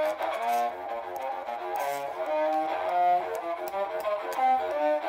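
Horn fiddle, an upright bowed fiddle with a brass horn for a resonator, played in a run of short bowed notes that keep changing pitch, with some slides between them.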